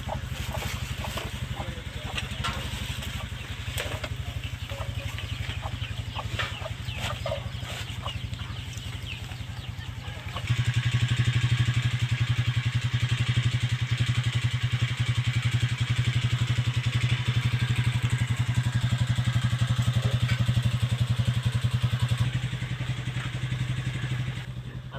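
Motorcycle engine running steadily, growing louder about ten seconds in and dropping back near the end.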